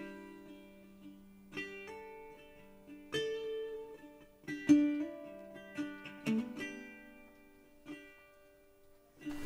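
Background music: a slow, sparse melody of plucked string notes, each ringing out and fading before the next.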